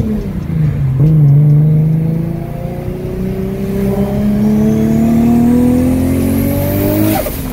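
Tuned Nissan Skyline R34 25GT Turbo's turbocharged straight-six, heard from inside the cabin, pulling hard with the revs climbing steadily after a brief dip for a gear change about a second in, and a faint rising whistle over the last few seconds. Near the end the revs drop sharply at the next shift with a short burst of noise: the turbo flutter as the throttle lifts.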